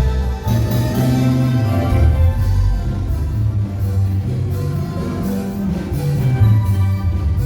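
Instrumental band music played live, with a strong bass line that moves from note to note about once a second under sustained higher notes, and no singing.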